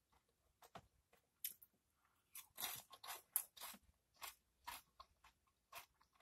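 Doritos tortilla chips dipped in Rotel cheese dip being chewed with the mouth closed, heard up close. There is a run of sharp crunches, about two a second, starting just under a second in and loudest a few seconds in.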